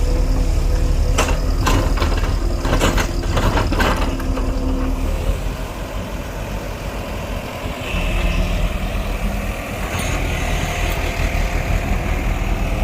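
Heavy diesel engine of an earthmoving machine running, with several sharp metallic knocks in the first few seconds.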